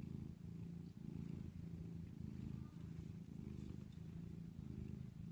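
Mother cat purring steadily while her kittens nurse, a low rumble that rises and falls with each breath.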